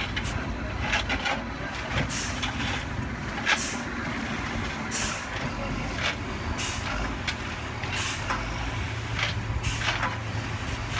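Dump truck engine running as the hydraulic hoist tips the bed to pour out a load of sand, the engine hum growing stronger near the end. Short sharp hisses break in about once a second.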